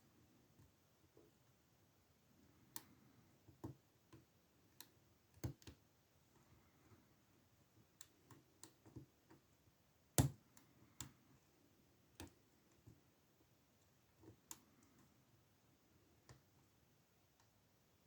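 Faint, irregular clicks and taps of a lock pick and tension wrench working in an old Ruko padlock, with one sharper click about ten seconds in.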